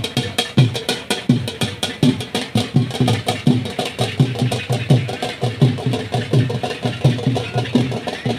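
Rhythmic drumming with a steady beat. Deep drum strokes, each dropping in pitch, come about two to three a second, with quick light ticks above them.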